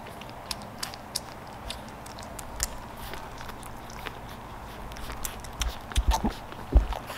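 Week-old Boston Terrier puppies suckling at their mother: a scattered run of small wet smacking clicks, with a few dull low thumps near the end.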